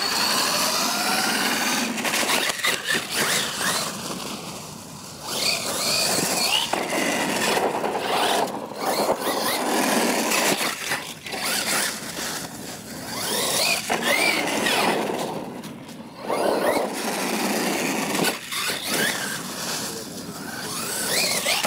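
Losi LMT radio-controlled monster truck's electric motor and drivetrain whining in repeated throttle bursts, the pitch rising and falling as it speeds up and slows, running on a 2S battery.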